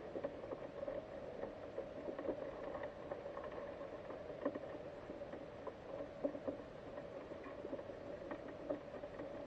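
Underwater sound picked up by a GoPro in its waterproof housing inside a wire-mesh crawfish trap: a steady faint hum with frequent small, irregular clicks and ticks.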